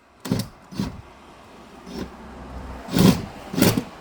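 Cordless impact wrench (rattle gun) tightening bolts in several short bursts of hammering, the loudest about three seconds in.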